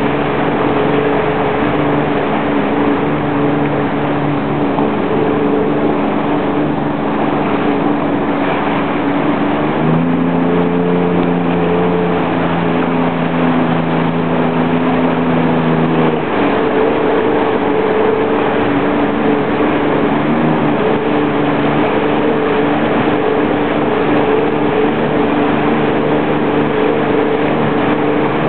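Jet ski engine running steadily under way over a constant rushing noise; about ten seconds in its note steps up higher for some six seconds, then settles back.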